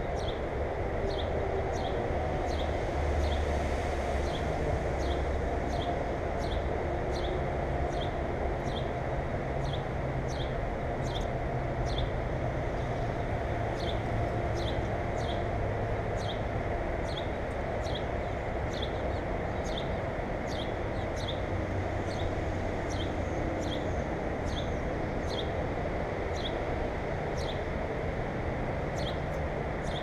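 Short high chirps repeated at an even pace, about three every two seconds, over a steady low rumble.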